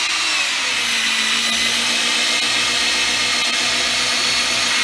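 Electric drill running steadily, spinning a drill-driven water pump that pumps water through a hose. The motor's whine drops in pitch during the first second, then holds steady.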